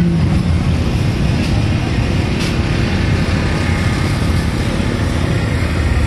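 Wind buffeting the phone's microphone: a loud, steady, irregular low rumble.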